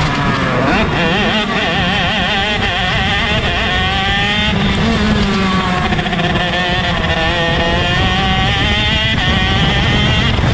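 Shifter kart's 125 cc two-stroke engine at racing speed, its pitch rising and falling repeatedly as the driver accelerates, shifts and brakes through the corners, with the engines of other karts just ahead mixed in.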